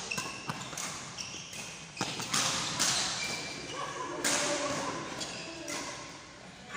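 Badminton rackets striking a shuttlecock in a rally, a sharp hit every second or so, echoing around a large sports hall, with voices in the background.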